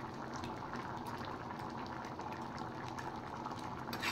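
Thick dal curry simmering at a boil in a steel pan, with a steady bubbling and small pops as bubbles burst; the dal is nearly done. Near the end a ladle goes into the pan.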